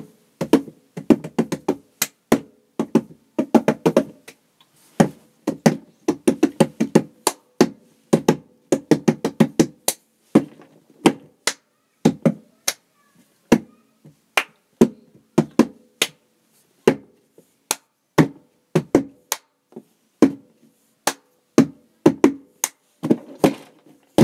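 Hands drumming on a box as a makeshift percussion instrument: many slaps and sharp taps in quick rhythmic runs separated by short gaps.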